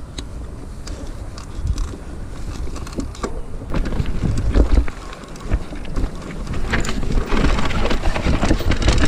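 Mountain bike rolling down a rocky trail: tyres running over stones, with many small knocks and rattles from the bike, and wind rumbling on the chest-mounted microphone. It gets louder in the last two seconds.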